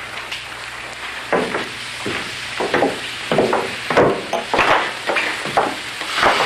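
Footsteps coming down a wooden staircase: an irregular series of hollow knocks starting about a second in, roughly two a second.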